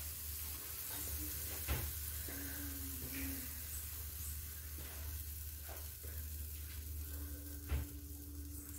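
Pancake batter frying in butter in a frying pan, a steady sizzle, with two small clicks, one about two seconds in and one near the end.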